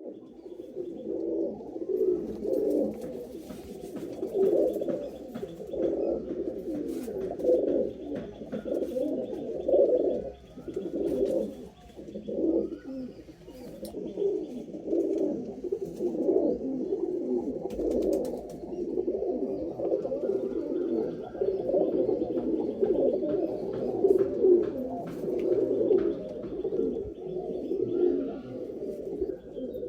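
Domestic pigeons cooing continuously, several low, throaty coos overlapping, with occasional light clicks and faint higher chirps.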